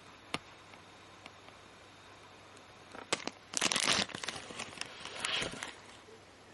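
Thin clear plastic bag crinkling as a plastic capsule-toy figure is handled in it and worked out, a dense run of sharp crackles lasting about two and a half seconds from about three seconds in. A single sharp click comes shortly before.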